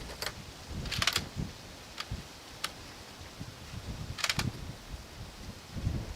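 Scattered sharp metallic clicks and clacks from handling a bolt-action M91/30 rifle, with a cluster about a second in and a pair a little past four seconds, over low rumble of wind on the microphone.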